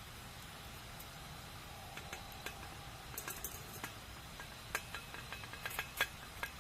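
Wood fire burning in a campfire, with a steady low hiss and scattered sharp crackles and pops, growing more frequent after a few seconds, the loudest pop near the end.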